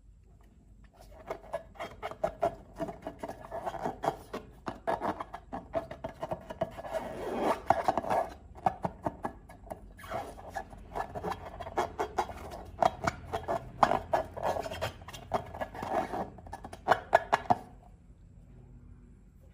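Slime being squished and kneaded by hand: a dense run of sticky clicks, crackles and rubbing. It starts about a second in, breaks off briefly about halfway, and stops near the end.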